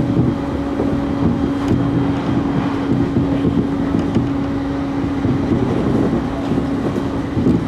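Running noise heard inside an electric train travelling at speed: a steady rumble of wheels on rail with a held hum that stops near the end.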